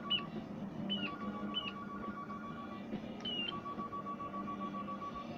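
Electronic sound effects from a battery-powered toy gun: a few short high chirps that dip slightly in pitch, over a steady electronic tone that holds for a second or two, breaks off and starts again.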